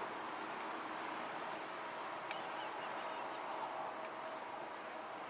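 Loaded iron-ore freight train passing at a distance: a steady rolling noise with a faint even hum.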